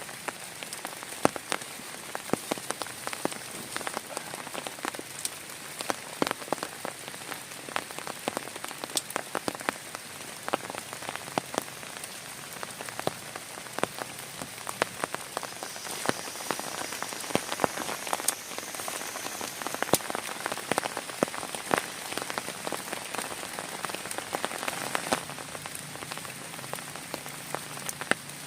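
Heavy rain falling steadily, with many separate drops tapping sharply on a surface close by.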